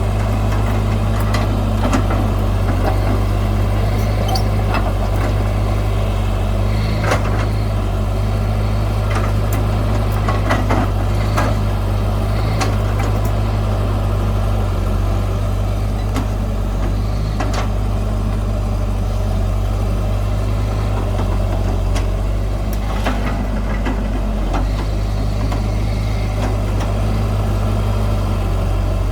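Heavy diesel engine of earthmoving machinery running steadily at a constant speed, with scattered metallic clanks and knocks.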